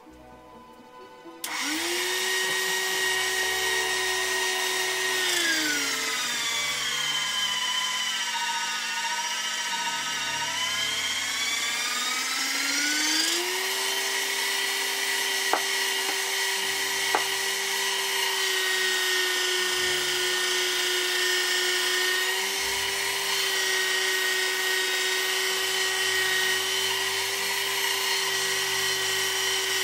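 Electric motor of a motorized pasta roller machine running with a steady hum, its pitch sagging for several seconds and then recovering as a sheet of dough is pulled through the rollers. Two light clicks follow soon after.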